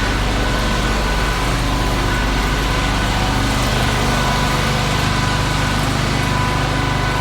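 Engine running steadily at an even speed, with a faint high whine over it.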